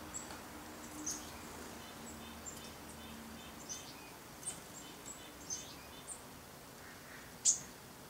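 Small songbirds giving short, high chirps and quick downward-sweeping call notes, with a fast run of softer notes in the middle and the loudest chirp near the end.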